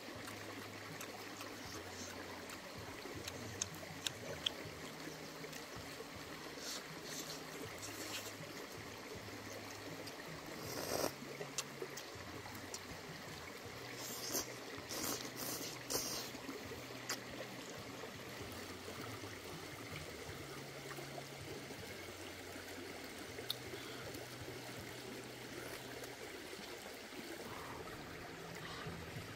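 A stream runs steadily. Several short, sharp mouth noises of slurping and chewing come through it, the clearest about 11 s in and between 14 and 16 s in, as curry and enoki mushrooms are eaten.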